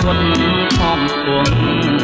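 Instrumental passage of a Cambodian song: a guitar melody over bass, with a steady beat of short high ticks.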